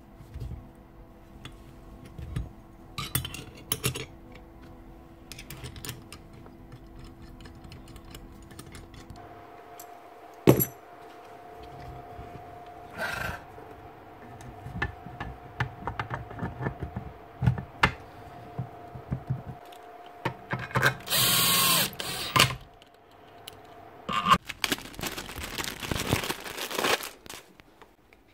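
Metal parts of a Makita 1125 planer being handled and fitted back together: scattered clicks, knocks and clinks, with two longer, louder noisy stretches in the last third.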